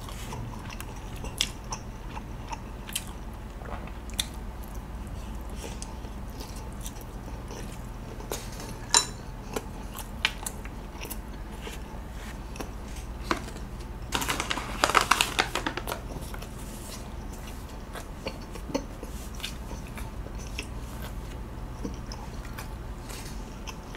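Close-miked chewing and biting of a sauced skewered sausage, with scattered small wet mouth clicks. A louder, denser spell of chewing noise comes about 15 s in.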